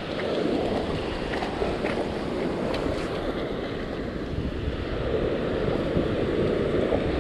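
Ocean surf washing on the beach, a steady rushing noise, with wind buffeting the microphone.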